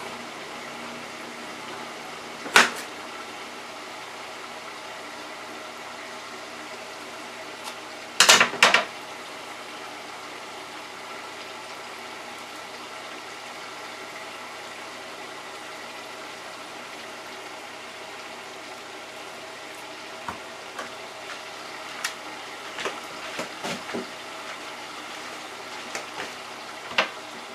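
French fries bubbling steadily in hot oil in a small electric deep fryer, with a few sharp knocks of a knife cutting through plantain onto a cutting board: one about two and a half seconds in, a loud cluster around eight seconds in, and lighter taps near the end.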